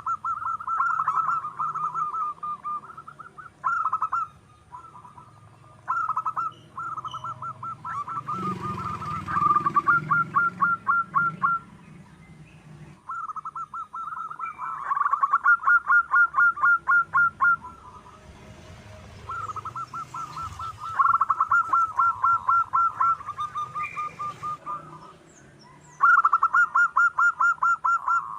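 Zebra dove calling in long runs of rapid, staccato notes, several seconds each with short pauses between, and faint high chirps of small birds above.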